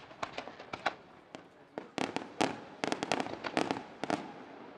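Aerial firework shells bursting: a run of sharp bangs and cracks, scattered at first and then thickening into a dense volley about two seconds in, which thins out near the end.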